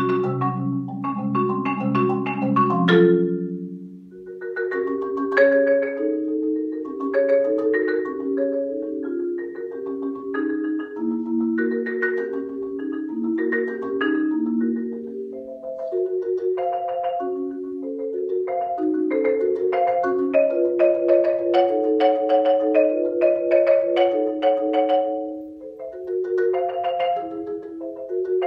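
Solo marimba played with mallets. Rolled low notes end about four seconds in, and a run of quicker notes and chords in the middle register follows, easing briefly near the end.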